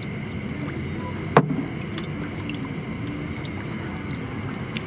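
Water swishing and washing along a small boat as a large bamboo-framed scoop net is pushed through the river, with one sharp knock about a second and a half in.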